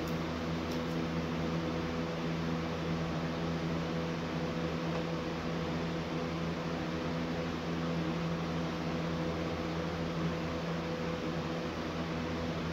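Steady electric hum with an even hiss from a running appliance, unchanging throughout, with a few faint light clicks near the start.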